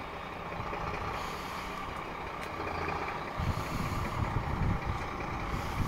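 Heavy truck running with a steady mechanical hum. From a little past halfway, uneven low rumbling buffets the microphone.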